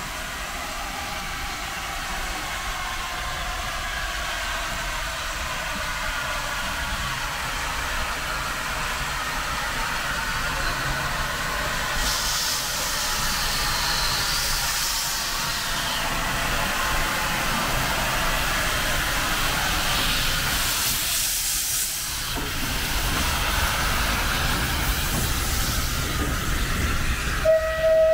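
Steam locomotive moving slowly at close range, its open cylinder cocks hissing steam steadily, with stronger surges of hiss partway through. A short steam whistle blast sounds near the end.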